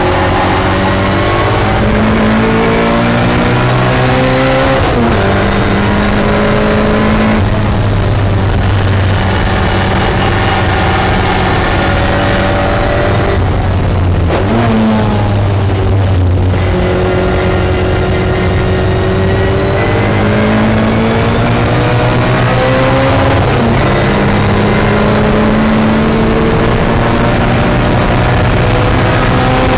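Sebring Sprite race car's four-cylinder engine heard from inside the cockpit, driven hard on a racing lap. The note climbs with the revs and drops sharply a few times as the gears change, easing briefly mid-lap before pulling hard again.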